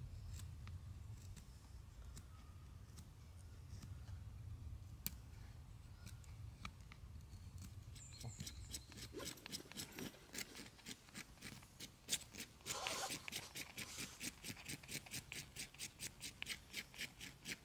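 Rapid, regular scraping strokes, about three a second, starting about halfway through, with a rougher, louder burst shortly after they begin; a hand tool working material.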